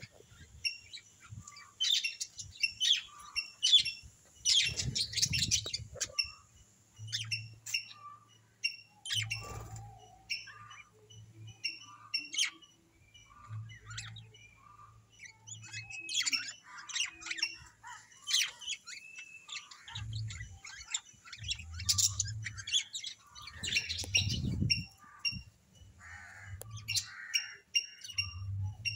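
Birds chirping and calling in quick, repeated short notes throughout, with a few short scuffling noises mixed in.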